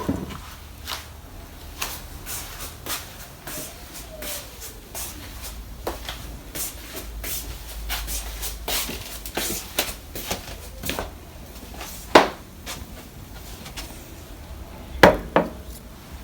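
Irregular clicks and knocks, as of things being handled and set down in a small room, over a steady low hum. Two knocks stand out, a sharp one about twelve seconds in and another near fifteen seconds.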